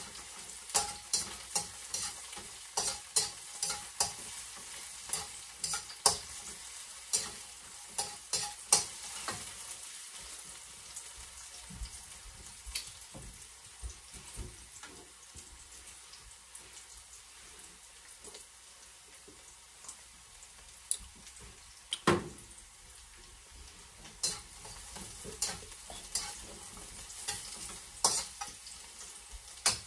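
Garlic and onion frying in cooking oil in a wok, a steady sizzle, with a metal spatula scraping and clicking against the pan as they are stirred toward browning. The stirring clicks thin out in the middle, with one loud knock about 22 seconds in, and pick up again near the end.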